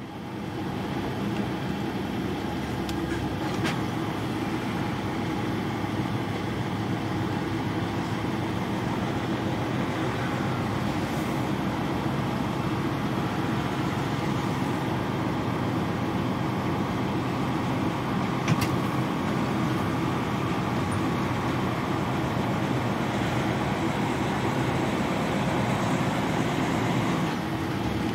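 A truck's diesel engine running, with tyre and road noise, as the lorry drives at low speed. Two short clicks cut through, one a few seconds in and one past the middle.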